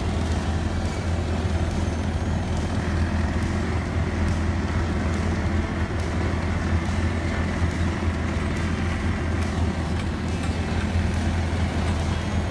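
Heavy diesel road-building machinery, an asphalt paver and its trucks, running steadily with a constant low hum and broad engine noise.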